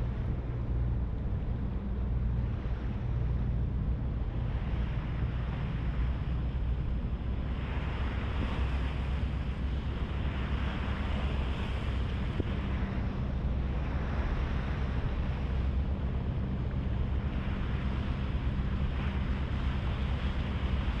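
Harbour ferry under way: a steady low engine drone with water rushing along the hull, the rushing swelling and easing every second or two. Wind on the microphone.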